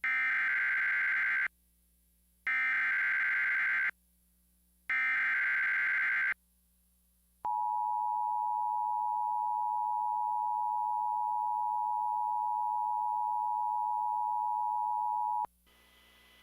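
Emergency Alert System tones. First come three SAME header data bursts, each about a second and a half of rapid digital data noise with a second's gap between them. Then the EAS two-tone attention signal sounds as a steady dual tone for about eight seconds and cuts off sharply, marking the start of a severe thunderstorm warning message.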